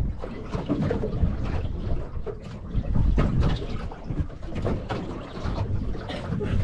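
Wind buffeting the microphone on an open boat at sea, a gusty low rumble, with the water of a choppy sea washing around the hull.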